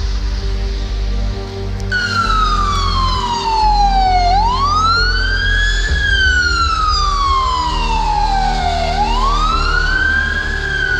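Ambulance siren starting about two seconds in and wailing in a repeating cycle: the pitch slides slowly down for a couple of seconds, then sweeps quickly back up, about every four and a half seconds. A steady low rumble runs underneath.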